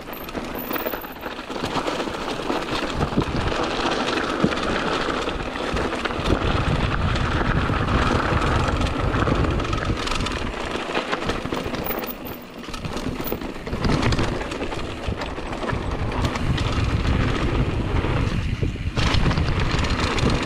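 Wind buffeting the microphone with a low rumble, and a mountain bike's tyres running over dry dirt and loose stones on a fast downhill descent, with steady clicks and rattles from the bike over the bumps.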